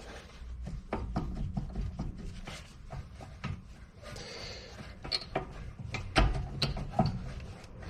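Scattered metallic clicks, knocks and scraping as a car's rear brake caliper and pads are worked by hand, with a single sharp knock about six seconds in. The pads are still held tight by the unretracted piston.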